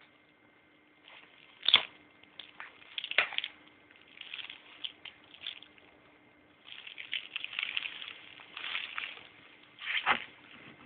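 A baby blowing raspberries: wet sputters through the lips, two short sharp ones in the first few seconds, then longer spluttering runs in the second half.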